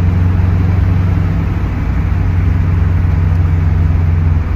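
Subaru WRX's built EJ257 flat-four turbo engine pulling under throttle, heard from inside the cabin: a steady low drone that drops off near the end as the throttle is let off.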